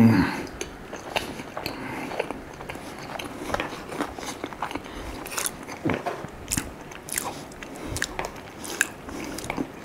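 Close-miked mouth sounds of someone biting and chewing a crepe, with irregular clicks coming a few times a second.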